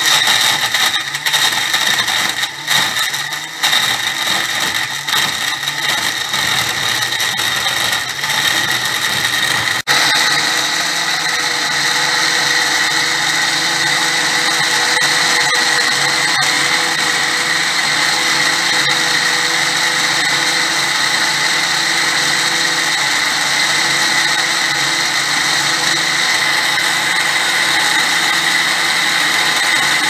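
Countertop blender crushing frozen lemon and orange pieces with sugar and water: for about the first ten seconds the motor runs choppy and uneven as the frozen chunks break up, then after a brief dip it settles into a steady, even whine as the mix turns smooth.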